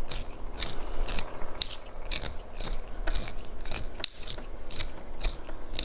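Kinetic sand being worked by hand or tool, giving crisp, scratchy crunches that repeat about twice a second.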